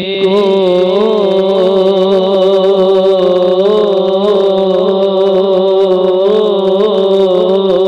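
A man singing a naat, drawing out one long, gently wavering note with no words clearly sung.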